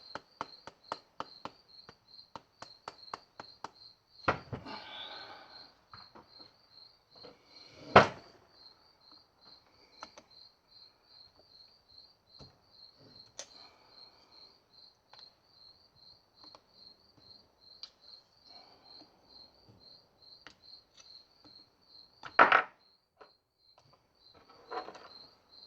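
A rubber mallet knocks several times on the S54's exhaust-side VANOS unit to loosen it, with a quick run of clicks near the start and a loud double knock near the end. A steady, high, pulsing chirp runs underneath.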